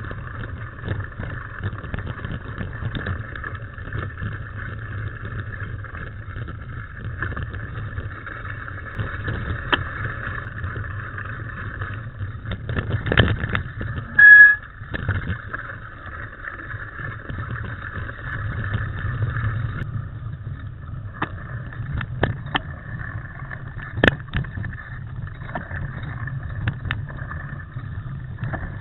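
Mountain bike riding over a rough forest trail: a steady rush of wind on the microphone, with the bike and camera mount knocking and rattling over bumps. About halfway through comes one short, loud high-pitched tone.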